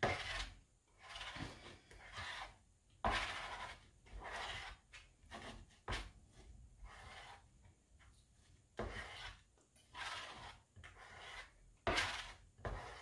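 A plastic spatula scraping spätzle dough back and forth across a perforated plastic spätzle grater plate, pressing it through the holes in a series of irregular rubbing strokes.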